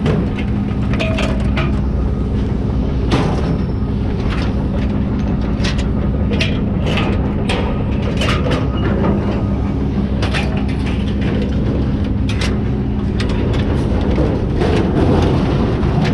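A vehicle engine runs steadily with a low hum, and frequent short clicks and rattles sound over it throughout.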